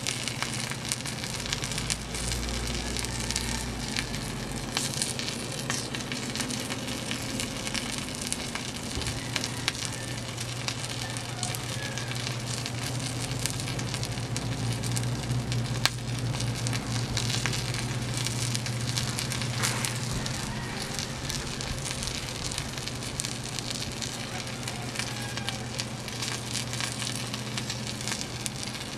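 Wood fire in a steel fire pit burning with a steady crackle and hiss, full of small pops, one sharper pop about halfway through. A low steady hum runs underneath.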